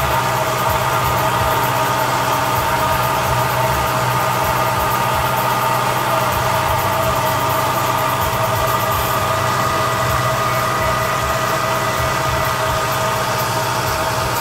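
Zetor Forterra HSX 130 tractor's diesel engine running steadily under load while pulling a corn planter through the field, a constant drone with a steady whine over it.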